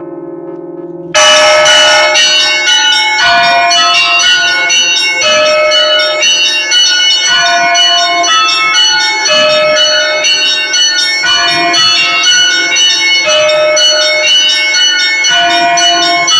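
Russian Orthodox church bells ringing a full peal. About a second in, as the hum of a big bell dies away, the small bells break in with a fast repeating pattern, over a deep bell stroke about every two seconds.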